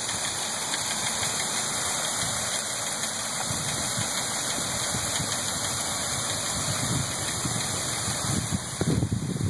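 Feed bin auger running with a steady mechanical hum and whir. A few low rumbling thumps come in near the end.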